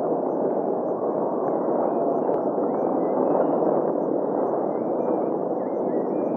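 Maleo giving a steady hiss, with faint chirps of other birds.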